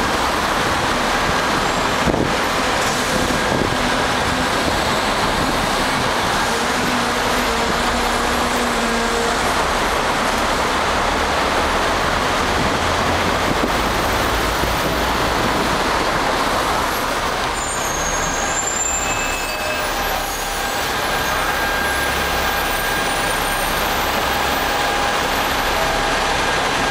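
Steady running noise of a Hong Kong double-decker tram on a busy city street, heard from on board, mixed with road traffic; a few faint high-pitched squeaks come in briefly about two-thirds of the way through.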